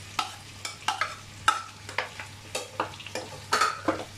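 A metal spoon clinking and scraping against a plate and a frying pan as chopped garlic is tipped into frying chicken and stirred: about a dozen sharp clinks, some ringing briefly, over a faint sizzle.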